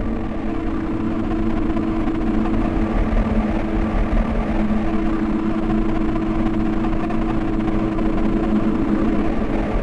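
Steady, dense droning rumble with a held low two-note hum running through it.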